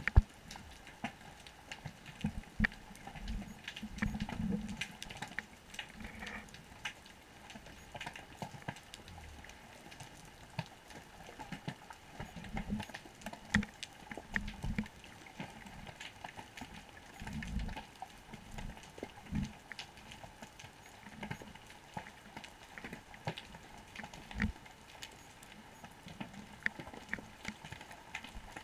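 Underwater sound of a rocky reef heard through a GoPro housing: a continuous crackle of short sharp clicks and pops, with irregular dull low thumps every second or so.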